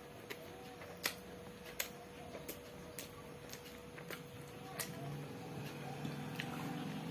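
Faint eating-by-hand sounds: small sharp clicks and smacks, irregular and about one a second, as rice is mixed with the fingers on a steel plate and chewed.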